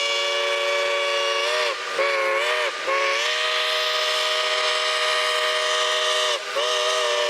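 Locomotive whistle sounding a chord of several notes in separate blasts: a short blast, then a long one, then another starting near the end. The pitch sags briefly as each blast cuts off.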